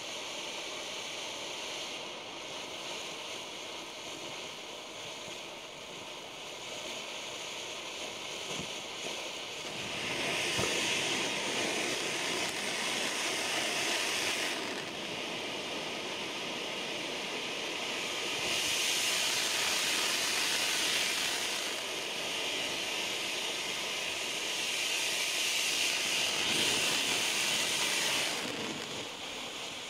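Low-noise ground firework fountain hissing steadily as it sprays sparks, swelling louder three times: about ten seconds in, nearer twenty seconds in, and again about twenty-five seconds in.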